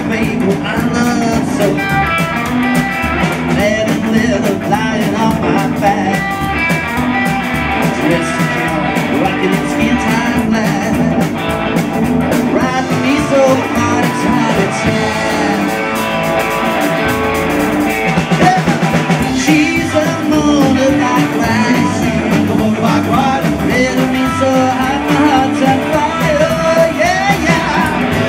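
Live rock and roll band playing: hollow-body electric guitar, upright double bass and drums, with a man singing.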